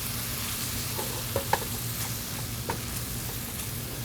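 Chili sizzling in a skillet while a spoon stirs it, with a few short knocks of the spoon against the pan between one and three seconds in.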